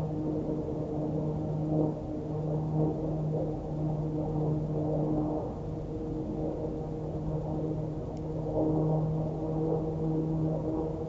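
Distant outdoor warning sirens, chiefly Thunderbolt 1000AT rotating sirens, sounding a steady alert tone during a monthly siren test. The pitch holds steady while the sound swells and fades as the rotating siren heads turn.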